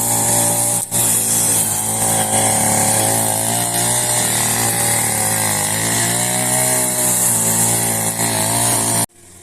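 Grass trimmer running under load as it cuts grass, its motor speed wavering up and down, with a high hiss from the spinning head; it cuts off abruptly near the end.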